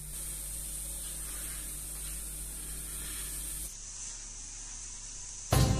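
A steady soft hiss that changes abruptly at an edit about two-thirds of the way in, then music with plucked string notes starts loudly near the end.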